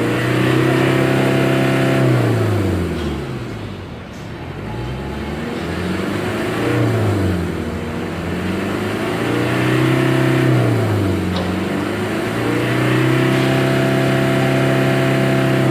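Mitsubishi L300 van's diesel engine being free-revved again and again with no load. It is held at high revs for a couple of seconds, let fall back toward idle, and run up again about three more times, ending on a long high hold.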